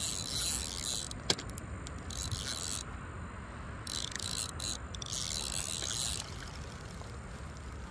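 Spinning reel being cranked in three spurts of one to two seconds each, a high whirring hiss that starts and stops sharply, as a hooked bass is reeled in to the bank; a single click comes about a second in.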